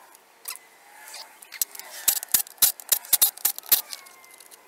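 Metal engine parts and hand tools clinking and knocking as an EZGO golf cart engine's top end is taken apart by hand, with a quick run of sharp clicks about two seconds in.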